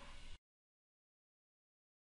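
Near silence: faint room noise dies away about half a second in, and then the track is completely silent.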